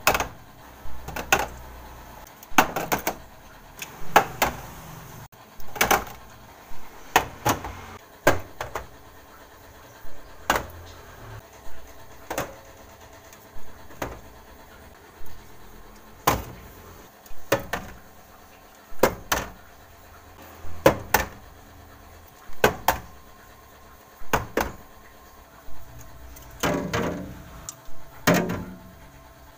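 Metal drink cans set down and shifted on a refrigerator's plastic shelves: a sharp clack roughly every second, some in quick pairs.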